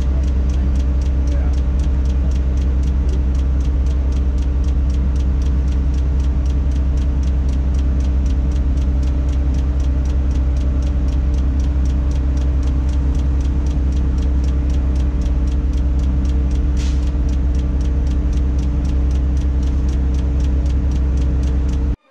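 Tadano crane's diesel engine running steadily, heard inside the operator's cab as a loud, even drone with a deep hum, with a rapid, even ticking over it.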